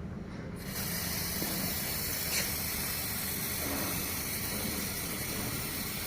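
Aerosol can of dye-penetrant developer spraying onto a weld in a steady hiss, starting about half a second in, with one brief tick partway through.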